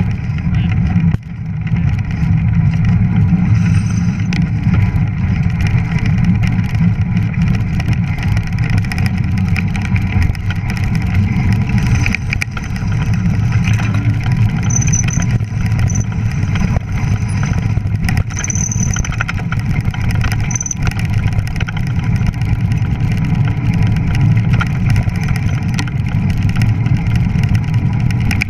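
Fat bike ridden fast over snow: a loud, steady low rumble of wind on the handlebar camera's microphone and of the fat tyres rolling, with frequent small knocks and rattles from the bike over bumps.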